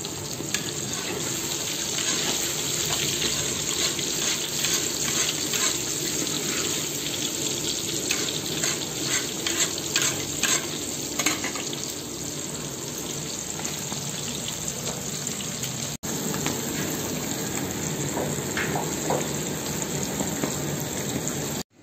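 Meatballs (tefteli) deep-frying in hot oil in a kazan: a steady sizzle with dense crackling, busiest about halfway through.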